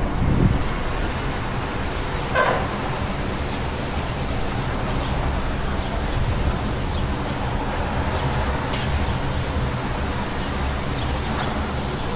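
City street ambience: a steady low traffic rumble and general urban noise, with a brief louder sound about two seconds in.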